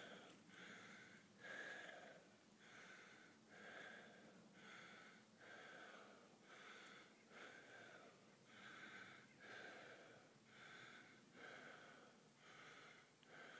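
A person breathing hard and quietly, an even rhythm of breaths about one a second: out of breath after a steep uphill walk.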